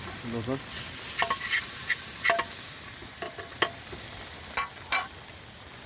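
Food sizzling in a cooking pan while a metal spoon stirs it, with several sharp clinks of the spoon against the pan.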